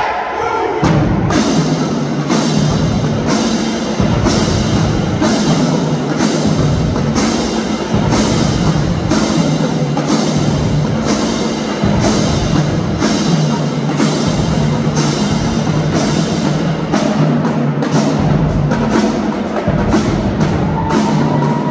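High school drumline playing: snare drums, tenor drums and bass drums, with crash cymbals clashing on a steady beat a little more than once a second.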